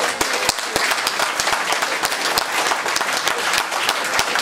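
Crowd applauding: many people clapping steadily and densely through the pause in a rally speech.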